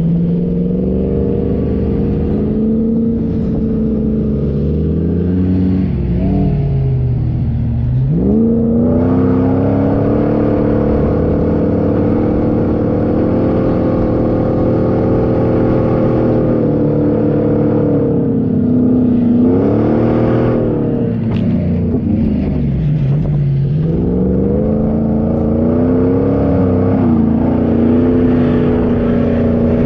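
A 4x4's engine pulling hard under load. Its speed holds steady, drops sharply and climbs back about eight seconds in, and again twice near twenty seconds in.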